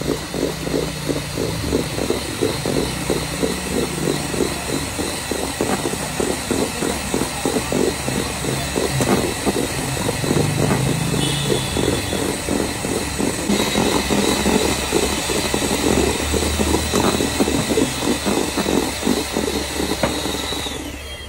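Electric hand mixer running steadily at speed, its beaters whipping egg whites to a stiff foam in a stainless steel bowl, with a fast, even rattle of the beaters against the bowl over the motor's whine.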